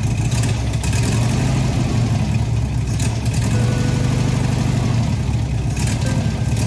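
1971 VW Bus's air-cooled flat-four engine running steadily through a replacement Beetle exhaust.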